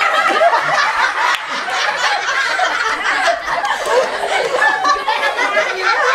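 Several people laughing and chattering over one another, with no clear words.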